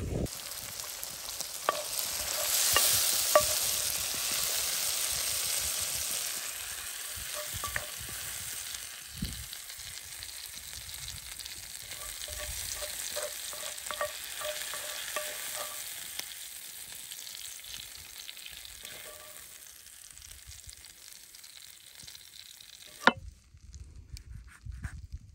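Food sizzling in a hot frying pan: a steady hiss with small scattered pops and crackles. It cuts off abruptly near the end.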